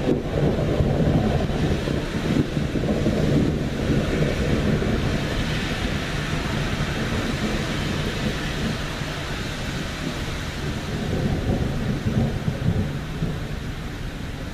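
Long rolling thunder rumble, loudest in the first few seconds, easing off, then swelling again near the end, over steady rain hiss.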